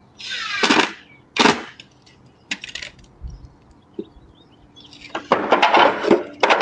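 Two short whirring bursts of a cordless drill, then scattered clicks and a longer stretch of knocking and clatter of the wooden boards near the end.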